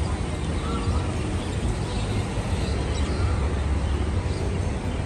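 Busy city street ambience: a steady low rumble of passing road traffic under the general noise of pedestrians.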